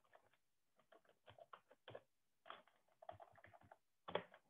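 Faint typing on a computer keyboard: an irregular run of key clicks, the strongest about four seconds in.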